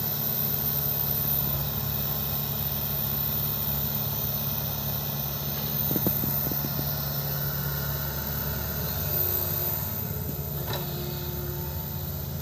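Excavator's diesel engine running steadily, with a few short knocks about halfway through and a sharp click near the end.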